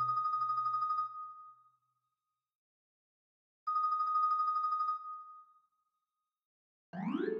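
Synthesized marimba (MuseScore 2 sample sound) playing a rolled tremolo on a single high note that dies away. After about two seconds of silence a second tremolo note sounds about halfway in and fades, and near the end a quick upward run begins.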